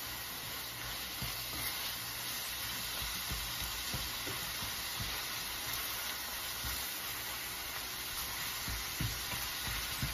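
Ground beef, bacon and onion sizzling steadily as they brown in a stainless steel skillet, with a spatula stirring them and knocking softly against the pan now and then.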